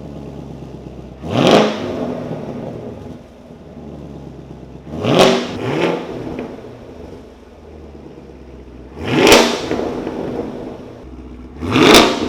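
Sixth-generation Chevrolet Camaro V8 on an AWE Touring Edition cat-back exhaust with X-pipe, idling and blipped sharply four times, each rev rising fast and dropping back to idle; the second blip is followed by a smaller one.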